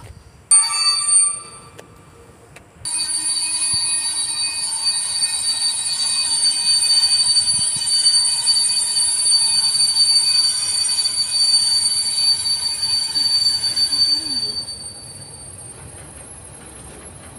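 Container freight train passing slowly, a high-pitched metallic squeal coming from the wagons' wheels. A short squeal about half a second in, then a steady squeal from about three seconds in that stops near the end, leaving only the quieter rolling of the wagons.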